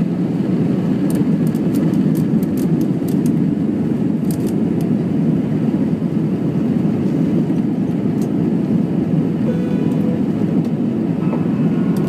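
Steady cabin noise inside an Airbus A319: the jet engines and airflow make an even, low drone, with a few faint clicks in the first few seconds.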